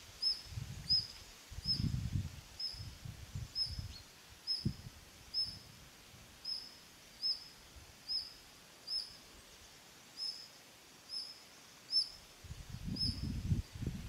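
A high, short chirping call repeated at a steady pace, a little more than once a second, each note slurring slightly downward. Bouts of low rumble come near the start and again near the end.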